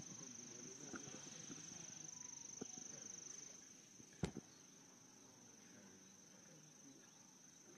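Faint crickets trilling steadily in one high continuous tone, with a low murmur under it that fades about three and a half seconds in. A single brief knock sounds about four seconds in.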